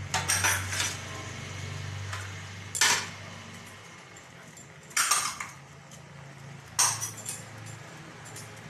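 Steel kitchen utensils clinking against each other four times, short sharp clatters about two seconds apart, over a steady low hum.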